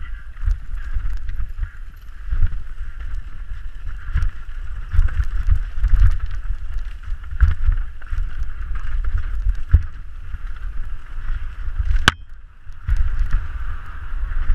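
Canyon Strive mountain bike riding fast down a dusty, rocky trail: tyres rolling over dirt and loose stones, with rattles and knocks from the bike and wind rumbling on the microphone. One sharp knock about twelve seconds in, then a short lull in the tyre noise.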